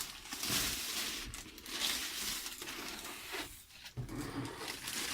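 Parcel packaging rustling and crinkling irregularly as a shoebox is pulled out of it.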